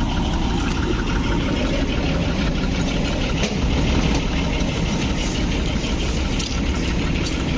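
Farm machine's engine idling steadily, with no change in speed.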